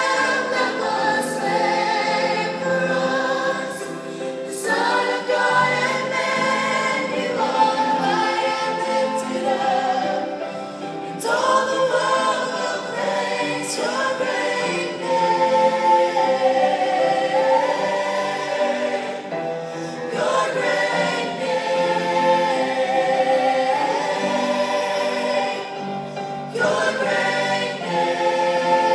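Mixed choir singing a gospel song, held notes in phrases that swell and re-enter every few seconds.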